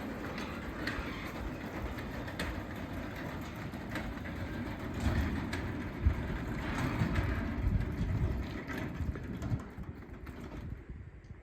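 Craftsman 3/4 hp belt-drive garage door opener running as it closes the door. It is a steady mechanical rumble that grows louder in the second half and stops about ten seconds in.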